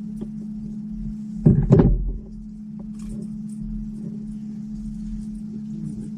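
A steady low hum, as of a small motor, with scattered light ticks, and a loud short double knock with a rustle about one and a half seconds in.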